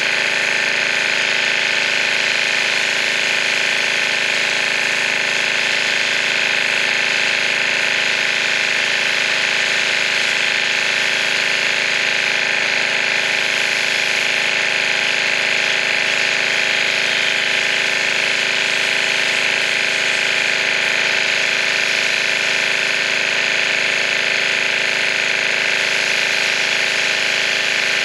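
Pressure washer running steadily, its motor and pump droning under the hiss of the water spray.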